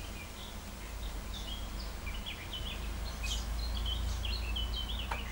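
Small songbirds chirping in quick short notes, busier after about two seconds, over a steady low rumble, with one sharp click near the end.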